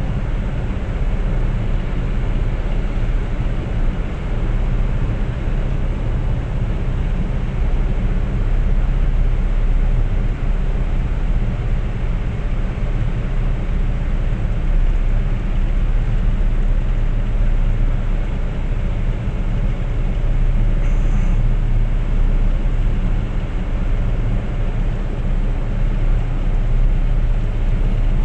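Small car's interior cruising noise at motorway speed: a steady low rumble of engine and tyres on the road, with a hiss of wind over the body.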